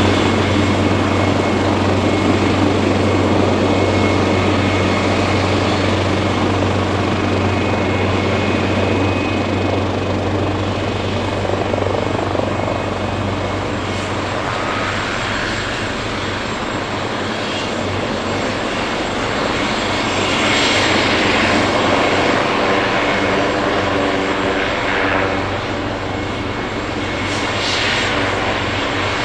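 Leonardo AW139 twin-turboshaft helicopter running: a steady low rotor drone with a thin, high, steady turbine whine over a broad rushing noise.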